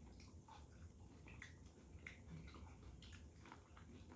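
Faint chewing and lip smacks from someone eating fried chicken: a scattering of short, soft clicks.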